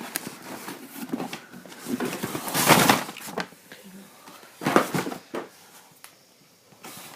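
Handling noises: a few rustles and knocks, loudest about two and a half seconds in and again near five seconds.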